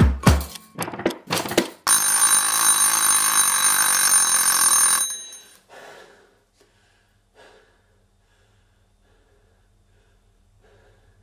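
The last heavy percussive hits of a music cue, then about two seconds in a loud, steady bell-like ringing over a hiss that fades away about five seconds in, leaving near silence.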